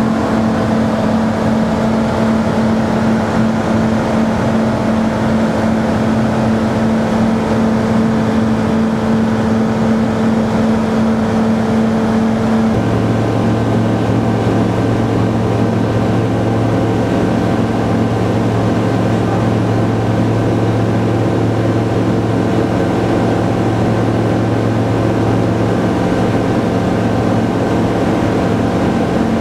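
Kitfox light aircraft's engine and propeller droning steadily in flight. Its pitch drops abruptly about thirteen seconds in.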